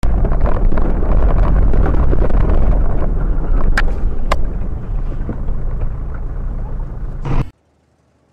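Car driving noise picked up by a dashcam microphone inside the car: a loud, steady low rumble. Two sharp knocks about four seconds in, then it cuts off suddenly near the end.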